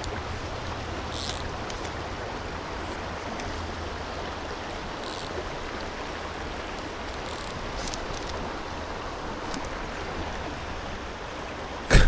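Mountain stream running steadily over a rocky bed, an even rushing of water.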